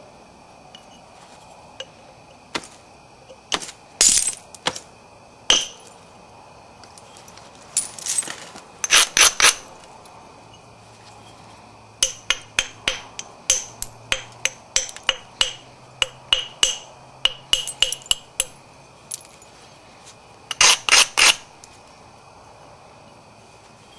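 Flintknapping a Florida coral point: the stone preform being tapped and struck, giving sharp stony clicks and chinks. Scattered single taps come first, then a quick run of about two light taps a second from about halfway through, and a tight cluster of strikes near the end.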